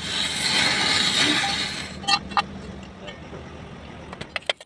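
Steel spanner and bar clinking against the nut and bolt of a jaw crusher's jaw plate: two sharp metallic clinks about two seconds in, and a quick run of clinks near the end. A loud steady hiss fills the first two seconds.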